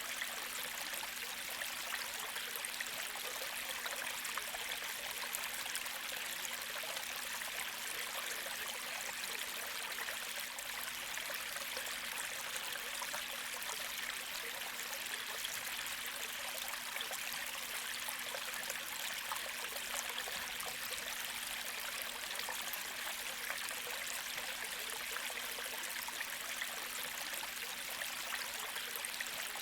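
A shallow creek flowing steadily, its water trickling and babbling in an even, unbroken hiss.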